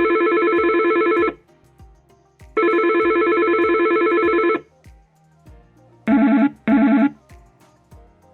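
Yealink T54W desk phone playing ringtone samples through its speaker. A trilling ring sounds twice, about two seconds each. Near the end a different, lower ringtone gives two short rings in quick succession.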